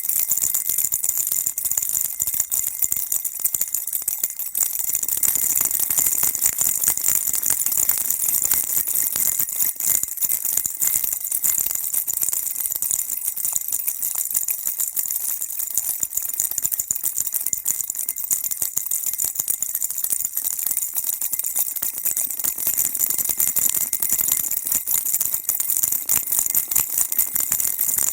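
Baby rattle shaken on and on, a dense, even stream of bright rattling clicks.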